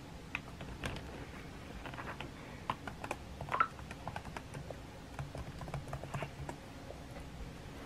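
Typing: a run of irregular, quick key clicks.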